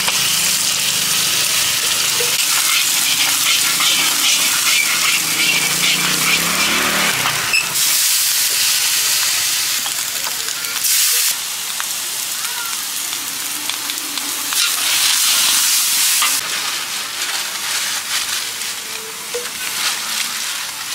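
Egg, greens and noodles frying in a hot wok, a steady loud sizzle with a metal spatula scraping and tapping against the wok. The sizzle surges louder several times as food is moved and added.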